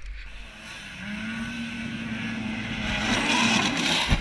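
Snowmobile engine running at high revs with the hiss of the track in snow, growing louder as the sled comes closer. The sound breaks off suddenly near the end.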